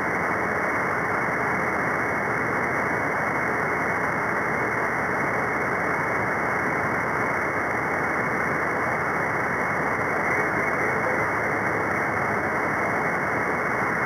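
Steady static hiss from a shortwave radio receiver tuned to the 11-metre CB freeband, the distant station faded out under the band noise.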